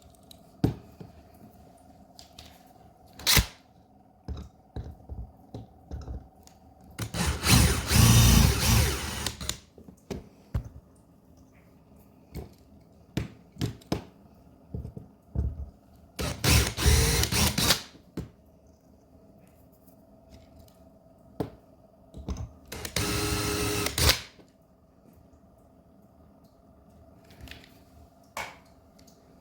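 A small power drill run in three short bursts, among light clicks and taps of small die-cast parts being handled.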